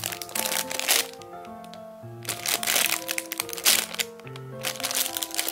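Background music with a simple melody of held notes, over the crinkling of a clear plastic bag as a squishy toy is squeezed and turned inside it. The crinkling comes and goes, dropping out briefly about a second in and again near four seconds.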